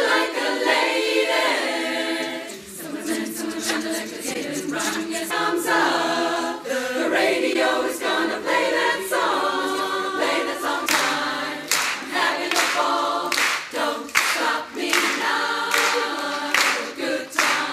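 Women's barbershop chorus singing a cappella in close harmony, with sharp percussive hits in the second half.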